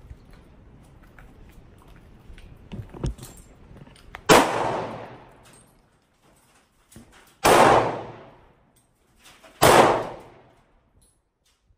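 Three pistol shots a few seconds apart, the first about four seconds in, each followed by a short echo that dies away within about a second.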